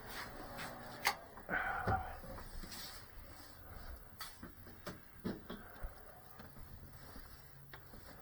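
Scattered clicks and knocks with a brief rustle about a second and a half in: small objects being handled and set down.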